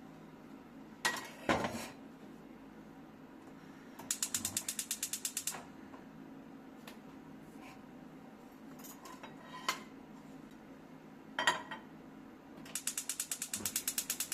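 Rapid ratchet-like mechanical clicking, about ten clicks a second, in two runs of about a second and a half each, with a few sharp knocks between them and a faint steady hum underneath.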